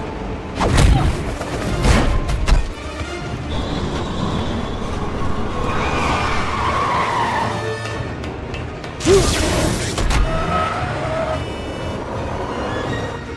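Action-film soundtrack: background music over the sound of a car driving, with several heavy hits in the first couple of seconds and another strong hit about nine seconds in.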